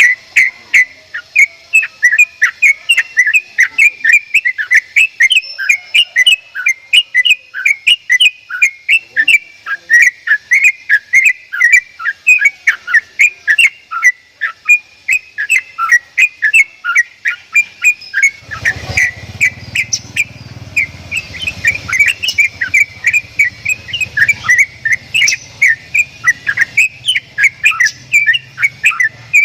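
Javan myna calling in a rapid, unbroken run of short, sharp whistled notes, about three to four a second. A low hum joins about two-thirds of the way through.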